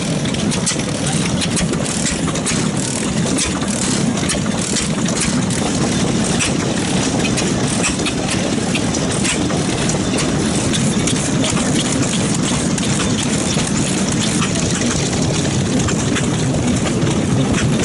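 Several vintage stationary engines with large flywheels running together, a steady clatter of many fast, overlapping knocks and exhaust beats.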